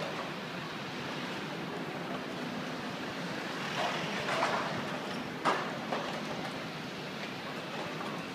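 Steady city street traffic noise, with a couple of brief clatters about four seconds in and a single sharp knock about five and a half seconds in.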